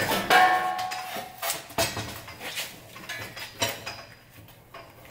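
Metal clinks and knocks from parts and tools being handled at a car's rear differential. A ringing clink comes in the first second, and the sounds grow sparse and quiet near the end.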